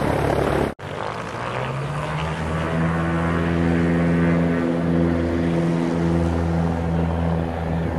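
Light-airplane engine and propeller of a 100 hp Cessna 150, rising in pitch over about a second as power comes up, then running steady at high power. Under a second in, the sound breaks off abruptly before the engine note begins.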